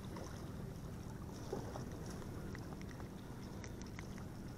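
Faint steady low rumble of wind and water in the background, with a few small clicks as a hook is worked free of a small bluefish's mouth by hand.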